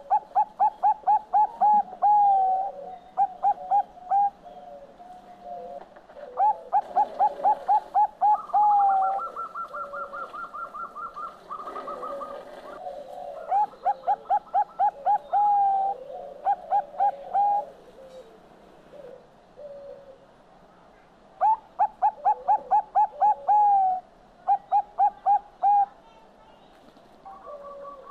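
Zebra dove (Bangkok perkutut) singing: repeated runs of quick, short cooing notes, several a second, each run lasting one to two seconds, with a higher, faster run of notes about a third of the way in.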